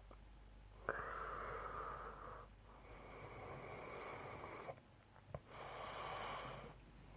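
A sleeping man snoring: three long, noisy breaths with short pauses between them, the first starting abruptly about a second in.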